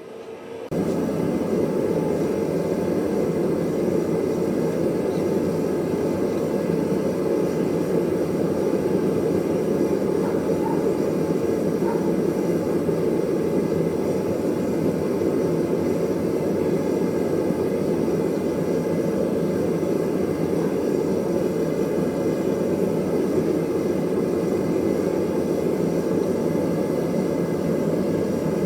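A forge running, a steady low rushing noise that starts abruptly about a second in, as the anvil is heated back up to quenching heat.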